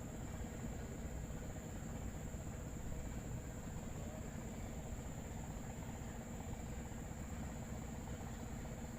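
Insects, likely crickets, keeping up a steady high unbroken drone over a low steady rumble.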